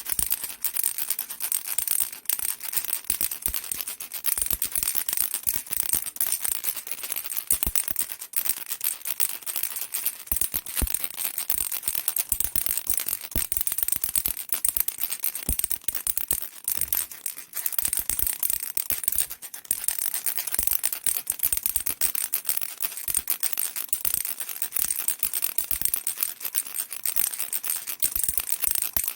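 Baby rattle shaken steadily without pause, a dense, fast clatter of many small clicks.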